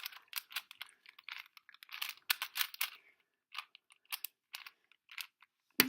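Plastic 4x4 speed cube being turned by hand, its layers clicking and clacking irregularly, with one louder clack near the end.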